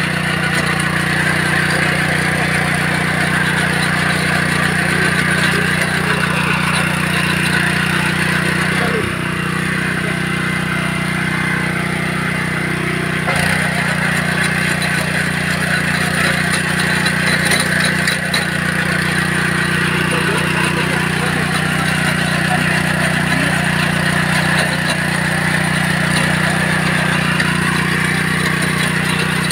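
Honda petrol rotary tiller's small single-cylinder four-stroke engine running steadily under load as it tills soil, with a constant drone.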